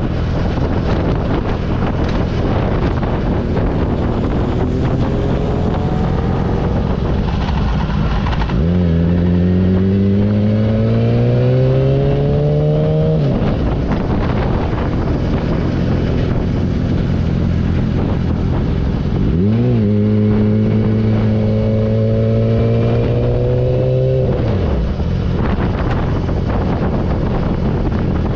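Yamaha YZF-R6 sport bike's inline-four engine running at road speed under heavy wind rush on the microphone. Twice its pitch climbs steadily for about four seconds as the bike pulls, then drops away suddenly as the throttle closes or it shifts.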